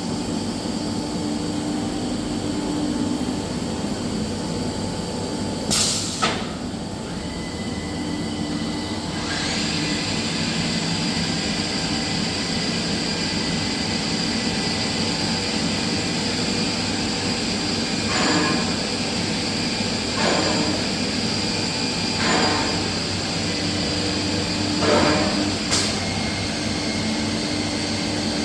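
SCM Morbidelli M100 CNC woodworking machining centre running: steady machine noise, joined about nine seconds in by a high, steady spindle whine, with several short sharp bursts of noise along the way.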